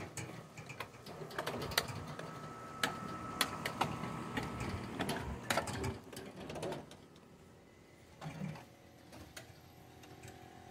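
Metal cart with equipment rattling and clicking as it is wheeled over rough, uneven ground. The clatter is irregular, and it dies down to a few scattered knocks after about six seconds.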